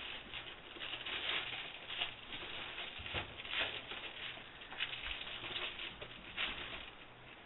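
Foil radiant barrier insulation rustling and crinkling in irregular bursts as it is shifted and fitted around a water heater tank.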